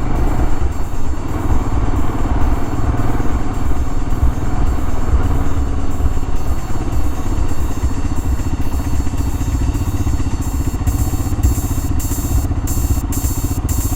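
Royal Enfield Himalayan's 411 cc single-cylinder engine running steadily, with a fast low pulse, heard from a helmet camera. A brighter, choppier hiss joins in over the last few seconds.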